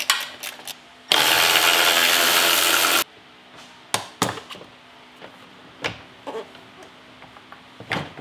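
Cordless electric ratchet running for about two seconds, spinning out a 10 mm bolt, with small clicks just before it and a few sharp knocks of bolts and plastic parts being handled afterwards.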